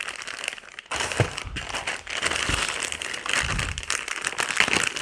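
Clear plastic bags crinkling as hands unwrap and handle master cylinders, a dense crackly rustle with a few soft knocks as parts are set down on cardboard.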